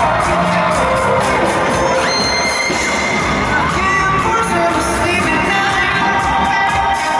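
Live pop-rock band playing through a loud arena PA: electric guitar, bass and keyboards with singing, and crowd noise mixed in.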